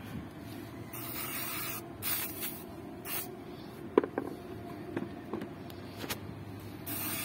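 Moisture-displacing aerosol spray can hissing in bursts onto an angle grinder's head: a long spray about a second in, a few short ones after it, and another near the end. A few light knocks in between.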